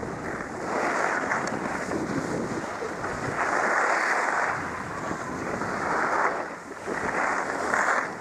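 Wind rushing over the camera's microphone while skiing, with skis scraping over packed snow, the rush swelling and easing several times.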